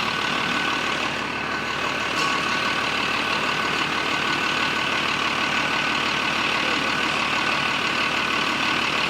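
Freshly rebuilt International DT 360 inline-six turbo diesel running steadily at idle with its diesel clatter, injection timing set at 24 degrees BTDC.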